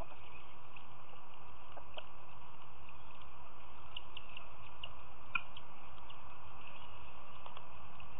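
Steady outdoor background hiss with scattered faint, short high ticks and chirps, and one sharper click about five seconds in.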